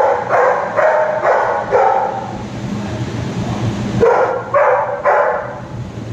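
Labrador retriever barking in quick runs: about five barks, a pause of under two seconds, then three more.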